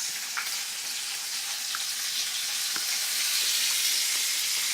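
Bacon frying in a pan: a steady sizzle with a few short pops.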